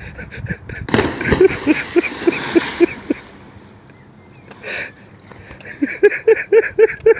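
A person plunging feet-first into canal water from a bridge: a big splash about a second in that churns on for about two seconds. From about six seconds a fast, rhythmic run of short calls, about three a second, sets in.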